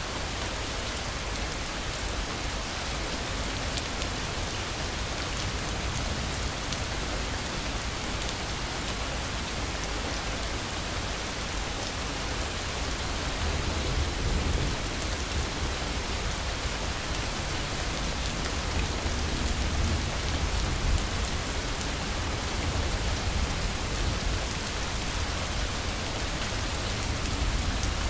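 Steady, dense rainfall, an even hiss of rain on surfaces, with a low rumble swelling a few times past the middle.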